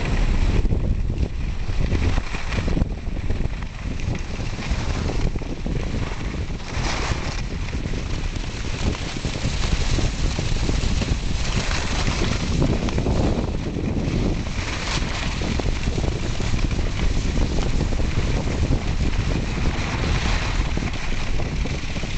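Wind rushing over the camera microphone during a downhill ski run, with the hiss and scrape of skis on packed snow swelling every few seconds as the skier turns.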